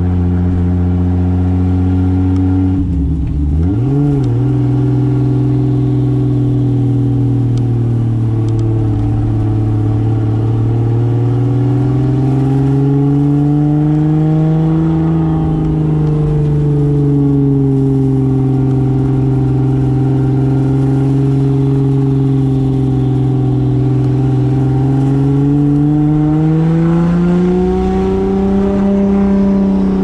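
Toyota Soarer's single-turbo 2JZ straight-six pulling steadily under way. The revs dip sharply and recover about three seconds in, then rise and fall gently with the throttle and climb near the end.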